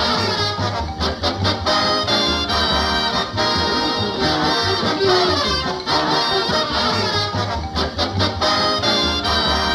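Brassy swing-style cartoon music with trumpets and trombones over a steady bass beat, with sliding runs of notes.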